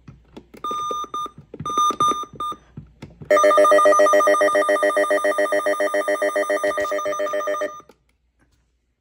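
MD319 weather alert radio (2019 version) being siren-tested. A few short high beeps are followed, about three seconds in, by its loud, rapidly pulsing electronic alarm tone, which fades slightly and cuts off suddenly about four and a half seconds later.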